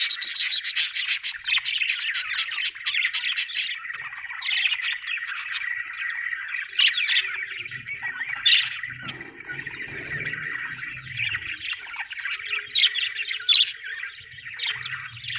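Budgerigar chirping and warbling, the chatter of a contented bird: a rapid, scratchy run of chatter for the first few seconds, then scattered sharp chirps over a continuous twittering.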